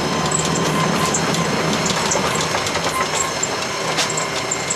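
Veter wheeled all-terrain vehicle running steadily at speed, close to 50 km/h: a constant engine and drivetrain drone with light rattling and clicking over it.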